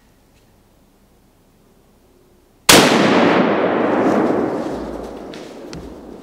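A single hunting-rifle shot about two and a half seconds in, fired at a doe, its report echoing and rolling away through the woods for about three seconds.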